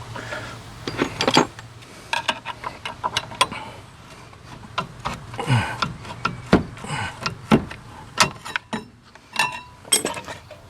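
Irregular metallic clinks and knocks of hand tools and a rear disc-brake caliper on a 2012 Ford Focus as the caliper is unbolted and worked off the rotor.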